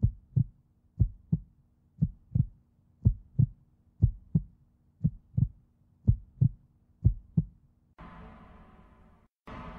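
Heartbeat sound effect: eight slow double thumps (lub-dub) about a second apart. About eight seconds in, a held note of several steady tones takes over and fades away.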